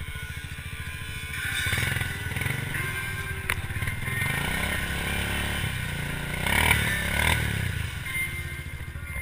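Mud-laden ATV engine revving up and down, the revs rising and falling as the quad works its way out of a swamp mud hole. Music plays underneath.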